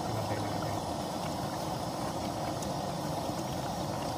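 Camp stove burner running under a steaming pot of stew, a steady rushing noise with no breaks.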